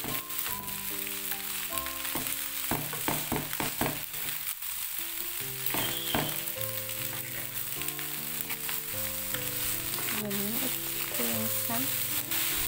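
Egg fried rice sizzling in a frying pan as it is stirred and turned with a wooden spatula, with a run of scraping clicks a few seconds in. Background music with stepping notes plays underneath.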